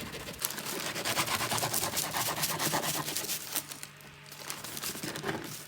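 Bread knife sawing through the hard crust of a homemade sourdough loaf: a dense crackling rasp for about three seconds, fading near the end. The crust is tough enough that the loaf is hard to slice.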